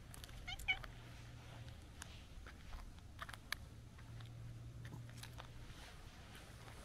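A brown tabby cat gives a short two-part meow about half a second in. Scattered light ticks and crunches of footsteps on a leaf-strewn paved path follow.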